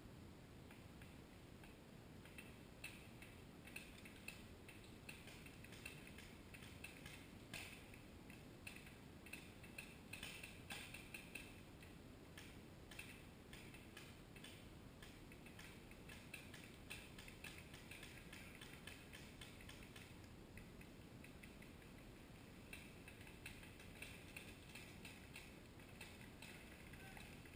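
Faint, irregular pops of distant paintball markers firing, with a quicker run of shots near the middle, over an otherwise near-silent background.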